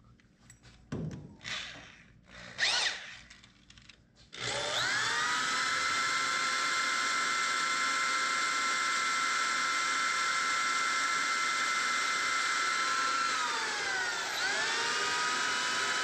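A corded electric drill, after a few faint handling knocks, starts about four seconds in and runs with a steady whine while drilling up into the car's floor. Its pitch sags for about a second near the end as the bit bites, then comes back up.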